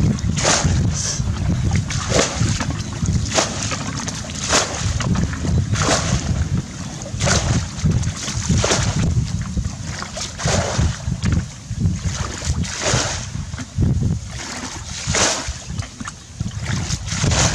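Muddy water splashing over and over as a plastic bucket is scooped through a shallow ditch and emptied, roughly one splash every second and a half. Wind rumbles on the microphone underneath.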